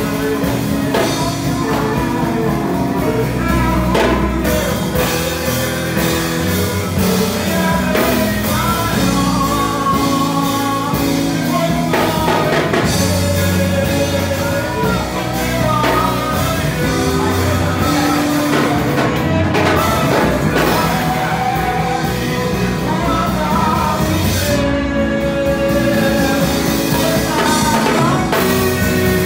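Live gospel worship music: a young man singing into a microphone, amplified through the church PA, with a drum kit playing along.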